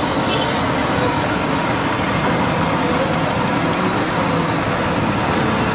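Steady road-traffic noise, a continuous rumble of passing vehicles.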